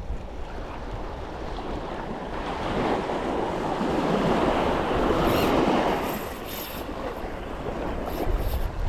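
Surf on the beach: one wave swells up and washes in over a few seconds in the middle, with wind rumbling on the microphone.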